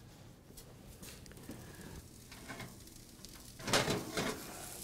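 A metal sheet pan of turkey burgers pulled out of a wall oven, a short scraping clatter on the oven rack near the end, followed by the burgers sizzling.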